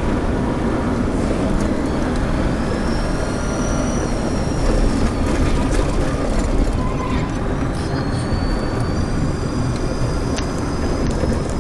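Steady driving noise of a vehicle moving at highway speed: a dense rumble of engine and tyres. A faint high whine slides in pitch twice.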